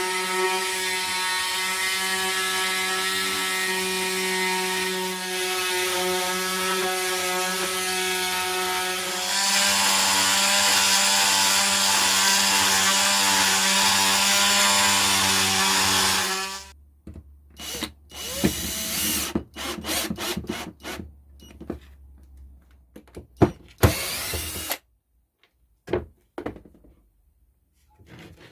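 Oscillating multi-tool with a thin cutting blade running steadily as it cuts a slot lengthwise along a plastic pipe; its whine grows louder and harsher about nine seconds in. After about sixteen seconds it stops suddenly, followed by scattered knocks and a couple of short bursts of noise.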